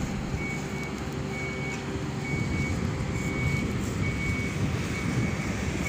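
A vehicle's reversing alarm giving a high, single-tone beep about once a second, six times, over a steady low engine rumble.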